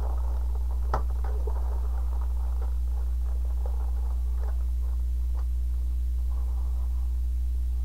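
Clear plastic wrapping crinkling and rustling by hand as a bagged model-kit part is opened, with scattered light clicks and one sharper click about a second in. A steady low electrical hum runs underneath.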